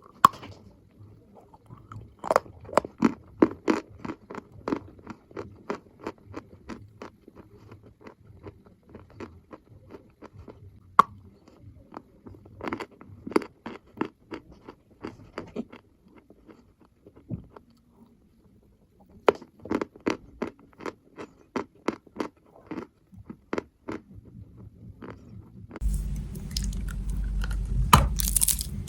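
Close-up crunching of chalk being bitten and chewed: runs of sharp, dry crackles with short pauses between them. Near the end it turns louder and rougher over a low rumble.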